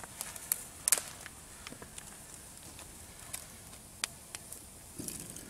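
Freshly lit campfire of small dry kindling crackling, with irregular sharp pops, the loudest about a second in.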